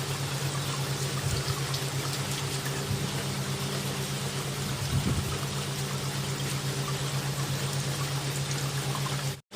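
Steady rain pouring down, an even rush of water, over a constant low hum. The sound cuts out for a moment near the end.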